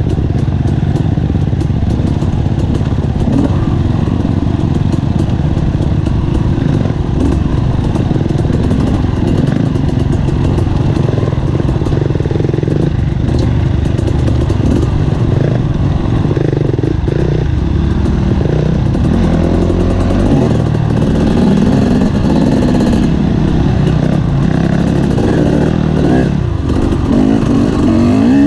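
Dirt bike engine running while riding a trail, with the engine revving up and down near the end.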